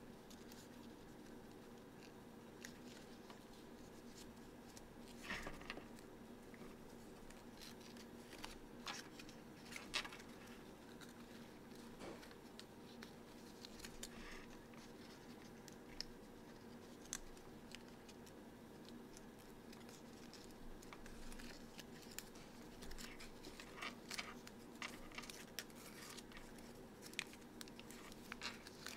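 Origami paper being folded and creased by hand: faint, scattered crinkles and crisp clicks over a steady low hum, coming more often near the end.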